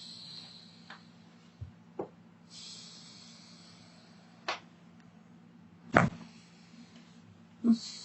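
Sharp clicks and pops of a chiropractic neck adjustment, a handful spread through the stretch, the loudest about six seconds in. A soft hiss runs from about two and a half to four and a half seconds, over a low steady hum.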